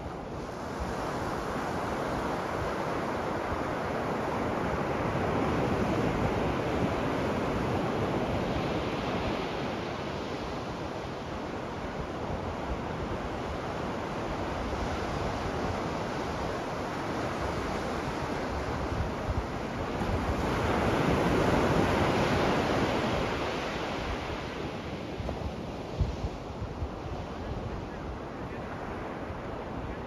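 Ocean waves breaking and washing up on a sandy beach: a steady rushing surf that swells louder twice, about a fifth of the way in and again about three quarters through, then eases back.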